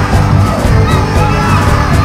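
Loud music with a heavy, regular bass beat, with crowd shouts mixed in.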